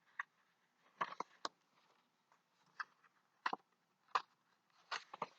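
Faint, irregular short clicks and taps, about eight of them scattered through a quiet pause, some in quick pairs.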